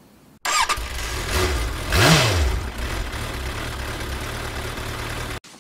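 Motorcycle engine sound effect: the engine runs steadily and revs once about two seconds in, rising and falling in pitch. It starts and cuts off abruptly.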